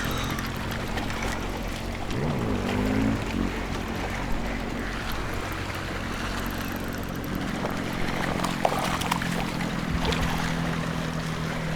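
A boat motor running steadily with a low hum, its pitch gliding briefly about two seconds in, over water sloshing against the hull.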